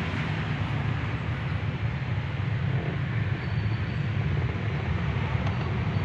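Steady low engine rumble, even in pitch and level throughout.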